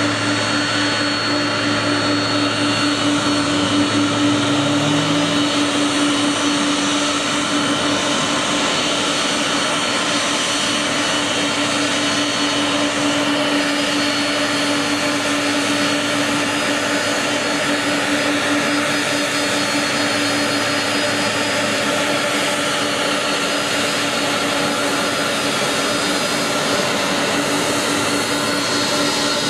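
Engines of a wide-body jet airliner running at taxi power as it rolls past: a steady rush with a constant whine.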